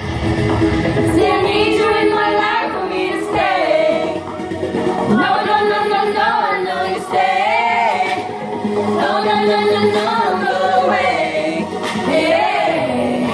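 Female voices singing a song.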